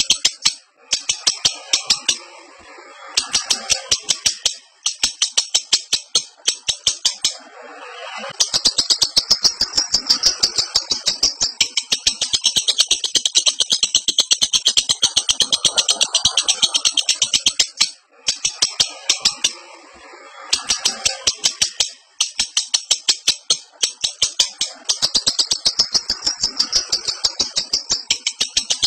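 Lovebird in breeding condition giving its long 'ngekek' chatter: a rapid, high-pitched run of sharp chirps, several a second, going on in long stretches broken by short pauses.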